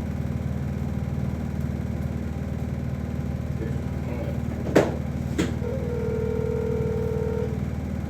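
A steady low hum, with two sharp clicks about half a second apart a little past the middle, followed by a steady held tone lasting about two seconds.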